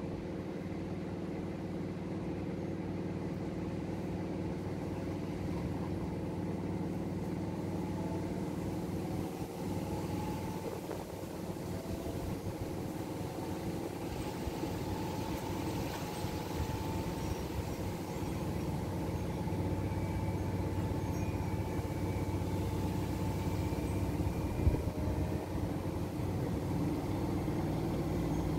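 Two front-loading washing machines, an AEG Öko-Lavamat and a Whirlpool FSCR70420, spinning together: a steady motor and drum hum with a whine that rises in pitch as spin speed builds. A single knock comes near the end.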